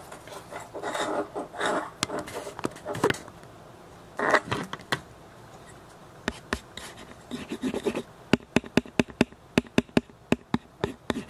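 Stethoscope chestpiece handled close to the microphone: fingers rub and scratch over it, then a run of quick, sharp taps on the diaphragm, several a second, in the last few seconds.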